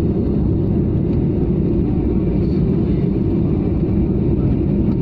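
Steady low cabin drone of a Boeing 737 climbing out after takeoff: jet engine and airflow noise heard from a window seat inside the cabin.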